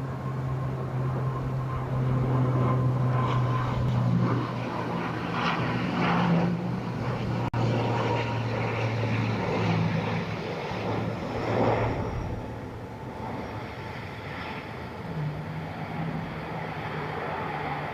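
ATR 72-500 turboprop engines and propellers droning with a steady low hum under gusty noise, louder for the first twelve seconds or so and then dropping off.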